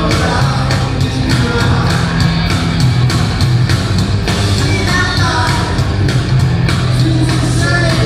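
Live rock band playing: driving drums, electric guitar and bass, with a man singing lead vocals.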